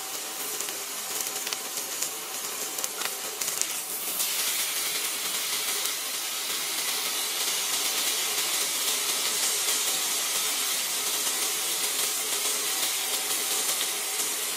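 T-bone steak sizzling on a hot cast iron grill pan: a steady, dense hiss of searing meat, growing louder about four seconds in.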